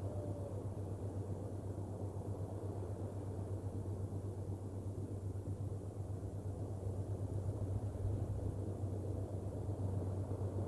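Steady low rumble with a constant low hum underneath: outdoor background noise with no distinct event.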